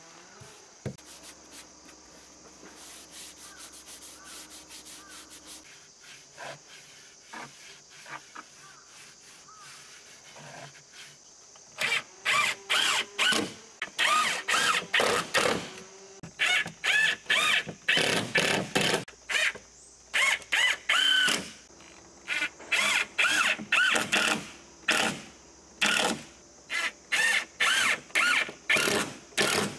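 Cordless power driver driving screws through a wooden batten into a plank wall, in many short bursts of whirring with a pitch that bends as each screw bites, starting about twelve seconds in. Before that, only faint handling sounds.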